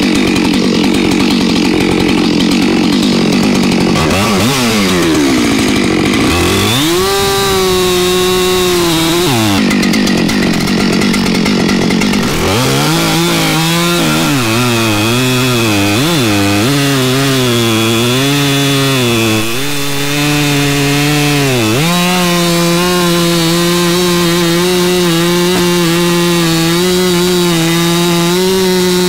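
Two-stroke chainsaw cutting a large white oak log, its revs repeatedly dipping and climbing back under load. For the last third it holds steady at high revs.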